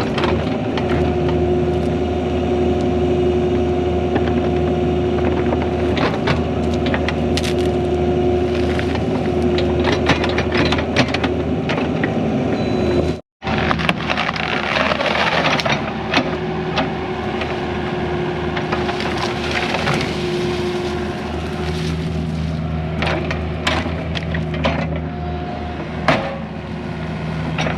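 Skid steer's diesel engine running steadily under load while the 4-in-1 bucket pulls a dead tree out of the ground, with repeated cracks and snaps of wood and roots breaking.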